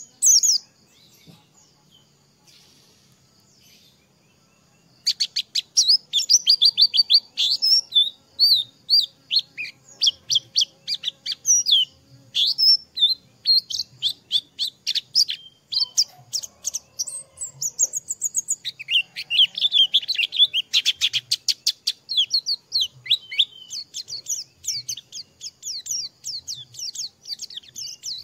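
White-eye (pleci) singing a long, fast, twittering song of rapid high chirps and trills, which starts about five seconds in after a short quiet spell.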